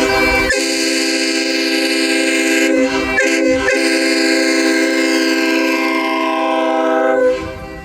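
Early Nathan K5HLA five-chime train horn blowing one long sustained chord. It wavers briefly twice about three seconds in, then cuts off near the end, leaving a low rumble.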